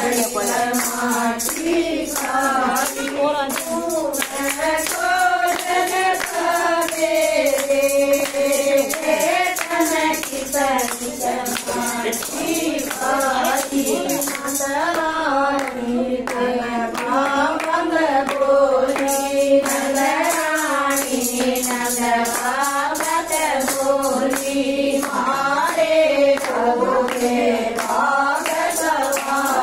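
A group of women singing a Haryanvi Krishna bhajan together in unison, kept in time by a steady beat of handclaps and a hand percussion.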